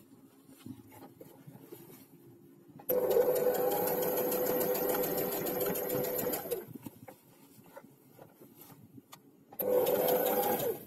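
Electric domestic sewing machine stitching through a trouser waistband with elastic inside. It runs steadily in two goes: one of about three and a half seconds starting about three seconds in, and a short one of about a second near the end, with quiet fabric handling between.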